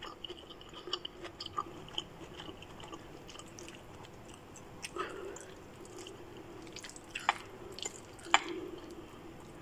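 Metal fork tapping and scraping on a plate as it cuts into a fried egg, with soft squishy sounds from the egg. A scatter of small sharp clicks, the loudest about eight seconds in.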